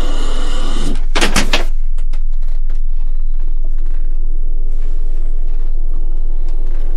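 Background music cuts off at a sudden cluster of three or four loud bangs about a second in, then faint scattered clicks over a steady low hum.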